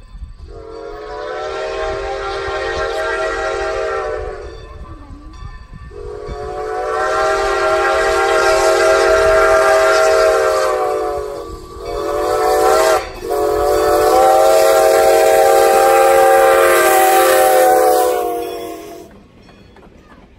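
Steam whistle of Strasburg Rail Road No. 90, a 2-10-0 steam locomotive, sounding the grade-crossing signal: two long blasts, a short one, then a final long one.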